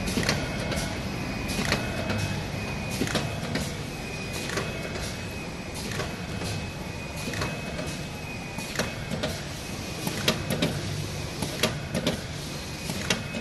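SPA-320 roll-fed screen printing machine and its UV curing unit running: a steady mechanical hum with a thin high whine, broken by sharp clacks about once or twice a second.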